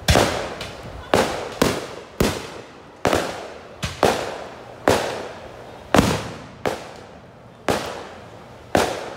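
Aerial fireworks going off in a rapid series, about a dozen loud bangs roughly one a second, each trailing off in a rolling echo.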